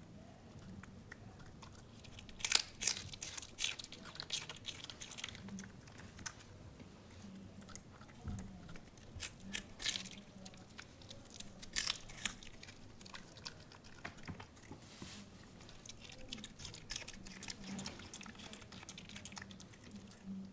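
A small dog chewing and crunching raw cabbage leaves, in irregular runs of crisp, wet crunches with short pauses between mouthfuls.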